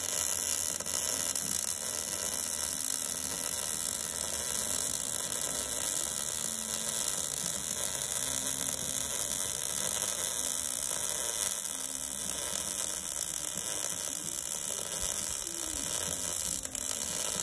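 MIG welding arc laying a bead on steel, a steady unbroken sizzling hiss with a faint hum under it.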